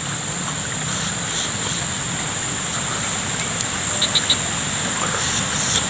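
Outdoor paddy-field ambience: a steady high-pitched insect drone over a soft hiss, with three quick chirps in a row about four seconds in.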